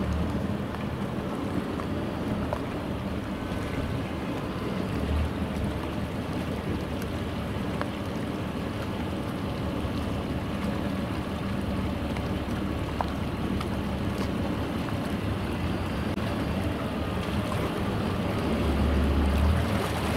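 Engine of a small harbor patrol boat idling as it maneuvers slowly into a slip, a steady low rumble that swells briefly about five seconds in and again near the end.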